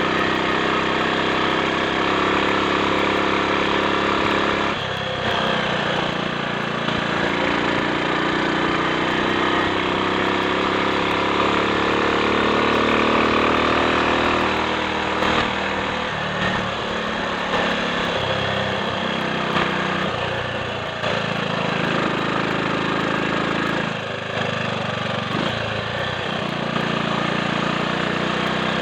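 Triumph Sports Cub's single-cylinder four-stroke engine running while the bike is ridden, its note rising and easing. It dips briefly about five seconds in and several times in the second half, over a steady rush of wind noise.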